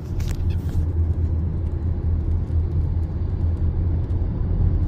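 Strong wind buffeting the microphone: a loud, uneven low rumble.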